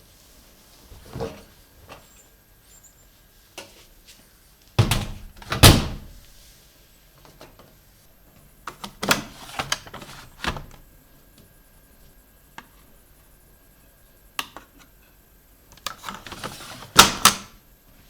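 Knocks and clunks of a front-loading washing machine being handled, its door or detergent drawer opened and shut. There are two loud clunks about five seconds in, a group of lighter knocks around ten seconds, and two more loud clunks near the end.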